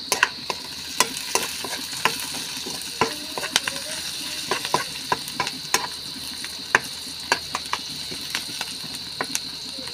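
Sliced onions and garlic sizzling steadily in hot oil in a pan while they are sautéed toward golden brown. Over the sizzle come sharp, irregular clicks and scrapes of a metal spatula stirring against the pan.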